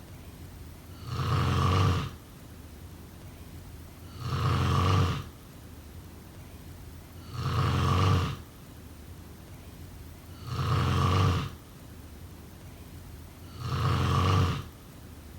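A person snoring in a steady rhythm: five snores, each about a second long, coming roughly every three seconds.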